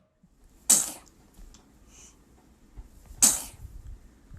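A baby sneezing twice, two short sharp sneezes about two and a half seconds apart.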